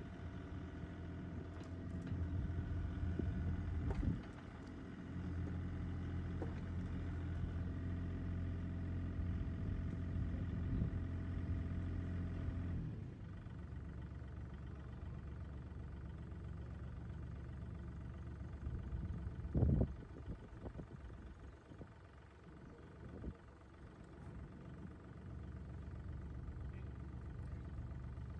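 2013 Bobcat E32 mini excavator's 25-horsepower diesel engine running steadily, its note dropping lower and quieter about halfway through. A short knock comes about two-thirds of the way in.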